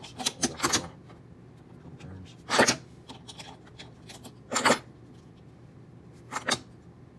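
Hands handling small parts of an Anet A8 3D printer's hotend: a few short clicks, scrapes and rustles, the loudest about two and a half seconds in and again near five seconds.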